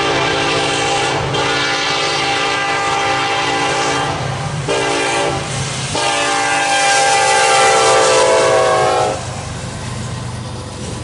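Norfolk Southern freight locomotive's air horn sounding a series of chords: a blast breaking off about a second in, a long blast, a short one, and a final long, loudest blast that stops about nine seconds in. This is the long-long-short-long grade-crossing signal. After the horn stops, freight cars rumble and clack past on the rails.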